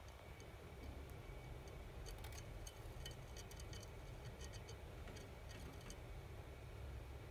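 Djungarian hamster licking and nibbling at the glass wall of its enclosure: faint, small, sharp clicks and ticks in irregular clusters.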